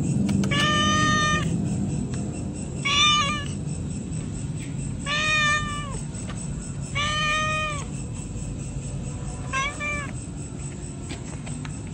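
A pregnant domestic cat meowing five times, each meow an arched call rising and then falling in pitch, spaced about two seconds apart; the last meow is the shortest.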